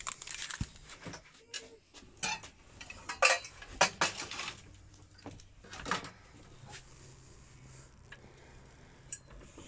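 Handling noise from the campervan's bunk fittings: scattered light clicks, knocks and rustles as the bed's edge and mesh safety net are gripped and pulled, loudest a few seconds in.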